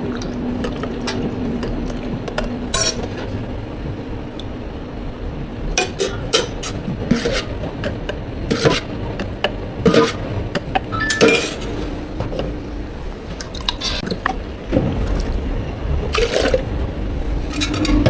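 Drink-making at a bubble tea counter: liquid poured into cups in several short pours, among scattered clinks and knocks of cups and utensils, over a steady low machine hum.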